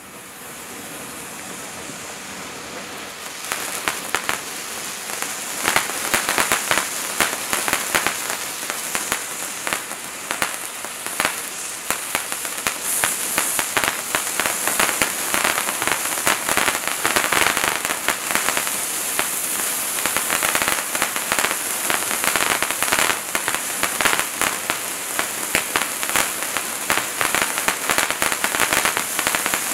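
Bright Star 2452 Wizards Wands hand-held firework fountain burning. It starts with a softer hiss as it catches, then about three seconds in it builds to a loud hissing spray full of rapid crackling pops.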